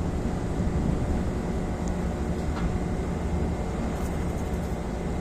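Fishing boat's engine running steadily, a low drone.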